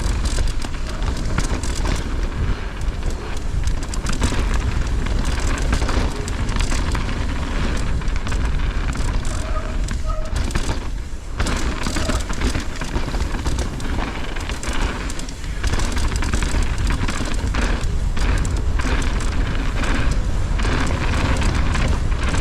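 Wind buffeting a helmet-mounted camera's microphone as a mountain bike rides over rough trail, with a steady low rumble and many small knocks and rattles from the bike.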